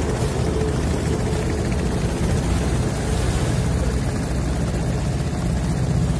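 Engine of a small river boat running steadily under way, with rushing wind and water noise across the microphone.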